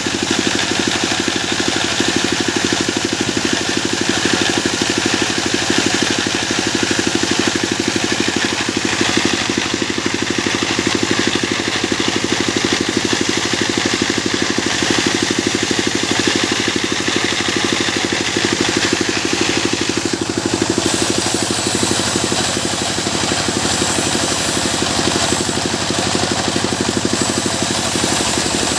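Sawmill machine running steadily with a continuous engine drone; its higher-pitched noise changes about two-thirds of the way through.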